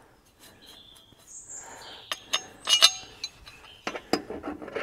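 Steel rotary mower blade and its bolts being handled and fitted back on: scattered metal clinks and knocks, with a few brief high squeaks of metal rubbing, and a quick run of clicks near the end.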